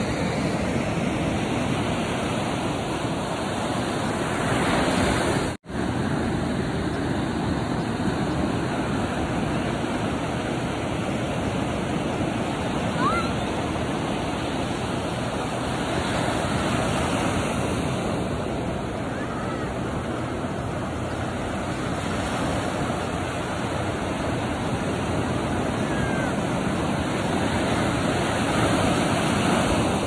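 Ocean surf breaking and washing up over wet sand: a continuous wash that swells and eases with the waves. The sound cuts out for an instant about five and a half seconds in.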